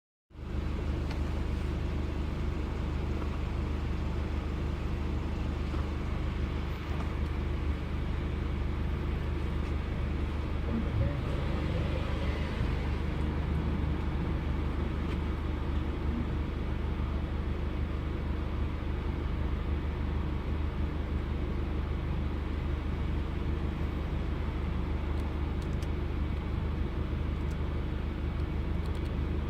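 Engine idling steadily with a misfire.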